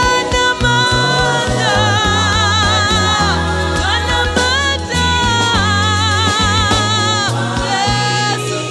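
Gospel choir singing over a band, with voices held and wavering in vibrato above a bass line and a regular drum beat.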